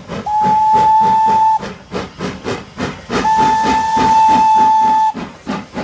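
Steam locomotive dressed as Thomas the Tank Engine blowing two long, steady whistle blasts, the second longer than the first, over a fast, even chuffing as it runs with its train.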